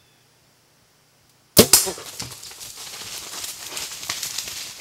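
Mathews compound bow shot: two sharp cracks close together about a second and a half in as the arrow is released and strikes a black bear, passing right through. The bear then crashes off through the brush and leaves, the noise slowly fading.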